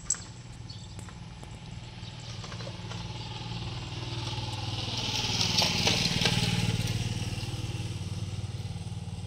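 A motorcycle passing along the road, its engine growing louder to a peak about six seconds in and then fading away.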